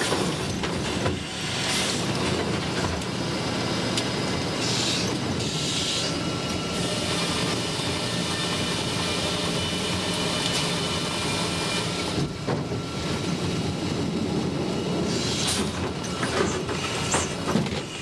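Sawmill head rig running: the log carriage and head saw working a pine log, a dense, continuous mechanical din with two stretches of brighter hiss, about five seconds in and again near the end.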